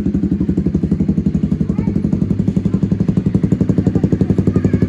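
Honda CBR250R's single-cylinder engine idling through a full aftermarket band-pipe exhaust with no baffling: a steady, rapid, even train of loud low exhaust pulses with no revving.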